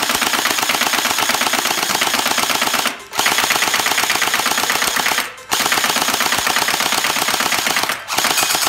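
RX AKM47 gel blaster firing full auto: a fast, even rattle of shots with the bolt cycling. It comes in four long bursts, broken by brief pauses about 3, 5½ and 8 seconds in.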